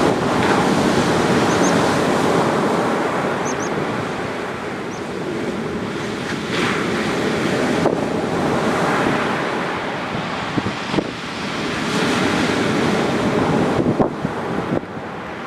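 Ocean waves breaking and washing up a sandy beach, the surf swelling and easing over several seconds, with wind buffeting the microphone. A few faint high bird chirps come in the first few seconds.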